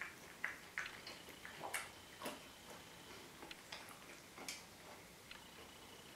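Quiet, irregular light clicks and taps of eating: a cat eating from a stainless steel bowl and chopsticks touching a plate, thickest in the first half. A faint, thin high tone comes and goes in the background.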